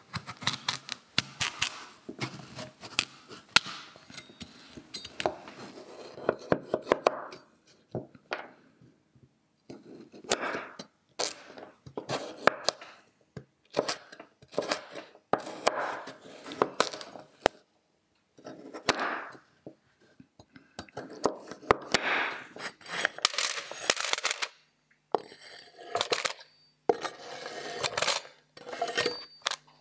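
Broad-bladed kitchen knife cutting raw pumpkin on a wooden cutting board: crunchy slicing strokes and sharp knocks of the blade on the board in irregular runs with short pauses. Near the end, pumpkin cubes are scraped off the board and drop into a metal steamer basket.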